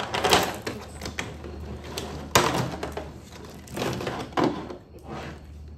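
Steel double-row timing chain rattling and clinking in several short bursts as it is handled and fitted into a chain riveting tool, with one sharp click about two and a half seconds in.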